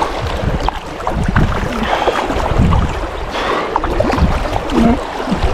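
Water splashing and sloshing with wind buffeting the microphone, as a big carp is fought on a fly rod close in.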